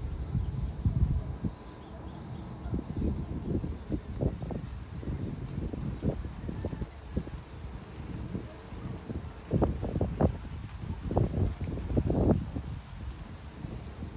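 Wind gusting on the microphone in irregular low buffets, several strong ones in the second half, over a steady high-pitched insect chorus.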